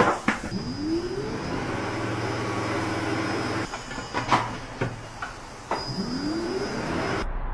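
A power tool whining up in pitch as it spins up, about half a second in and again near the end, with sharp clicks and knocks in between over steady workshop noise and hiss.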